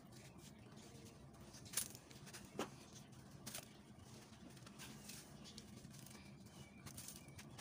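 Wet sand-cement block crumbling under a gloved hand: faint gritty crunching with a few sharp clicks, the loudest about two seconds in.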